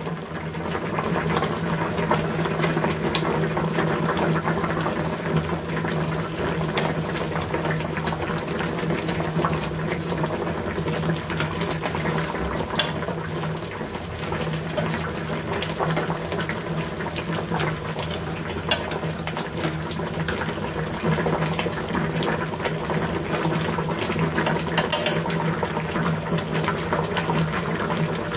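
Pork lung and potato soup boiling in a frying pan, a steady bubbling with fine crackles, over a steady low hum.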